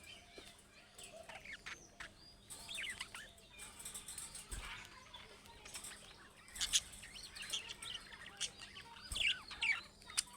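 Budgerigars chirping and warbling continuously in quick, short twittering notes, with a few sharp clicks or taps mixed in.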